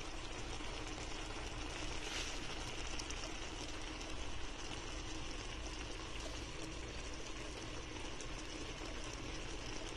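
Shrimp in a butter and evaporated-milk sauce simmering in a frying pan: a steady bubbling with small pops and crackles.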